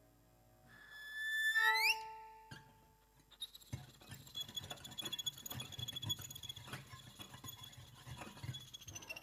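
Free improvisation on electric violin and prepared piano: a loud, high violin note slides steeply upward about a second in and breaks off. Then comes a scratchy, crackling texture of rapid clicks with a thin high tone held over it.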